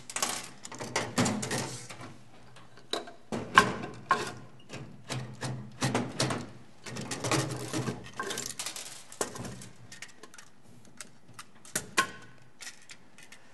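Handling noise from electronics teardown: irregular clicks, knocks and metallic rattles as circuit cards and a screwdriver are worked against a metal card cage and a steel workbench.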